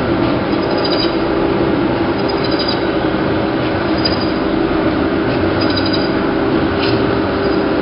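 Plastic bag cutting machine running steadily: a constant machine hum with faint high ticks every second or two as it cycles.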